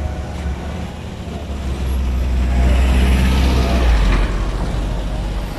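A small pickup truck drives past close by: its low engine rumble swells, is loudest about three to four seconds in, then drops away.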